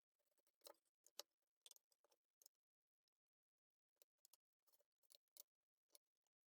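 Near silence, with faint scattered clicks and taps.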